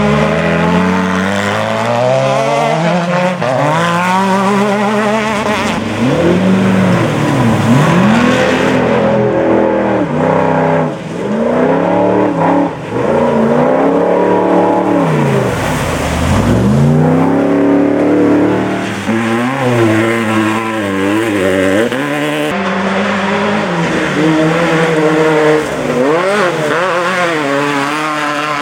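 Off-road race vehicle engines revving hard, their pitch rising and falling over and over as the throttle opens and lifts. The sound changes abruptly a few times, as from one vehicle to another.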